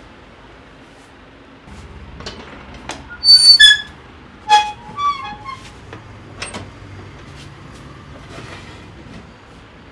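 A handful of short, loud, high-pitched squeaks and falling chirps, the loudest about three and a half seconds in, mixed with a few sharp clicks over a low steady background hum.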